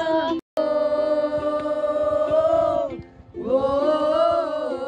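A group of people singing together unaccompanied in long held notes. There is a brief cut to silence about half a second in, a pause near three seconds, and a final held note that starts to fade near the end.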